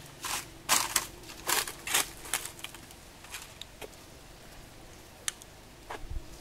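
A macaque crunching something hard held to its mouth: a quick run of sharp cracks and crunches, then scattered single clicks.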